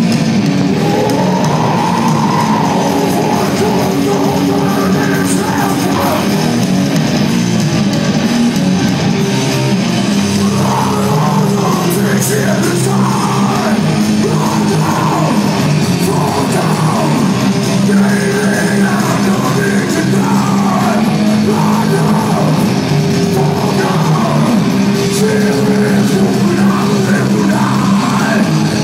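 Heavy metal band playing live, heard from within the crowd: heavy distorted guitar and bass with drums, and shouted singing over them.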